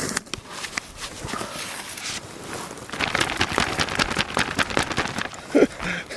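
Handling noise from gear being put together in a hunting blind, most likely a goose flag being assembled: rapid clicks and rustles, sparse at first and much denser from about halfway through.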